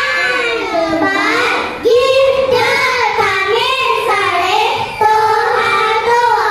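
A group of young children's voices singing together in unison, as part of a choral speaking performance.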